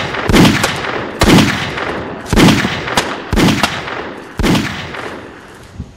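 A series of gunshots, five loud reports about a second apart, each trailing off in a short echo, with a fainter pop near the end.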